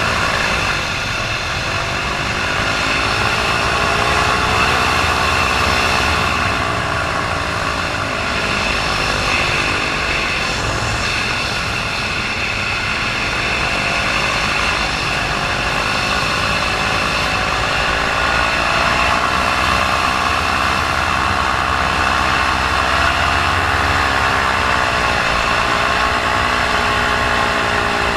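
Paramotor engine running in flight, its pitch slowly rising and falling several times as the RPM wavers: the motor is losing power.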